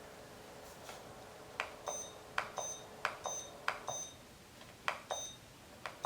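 A run of sharp clicks, mostly in pairs about 0.7 s apart, starting about a second and a half in, with a faint high electronic beep tone sounding alongside them.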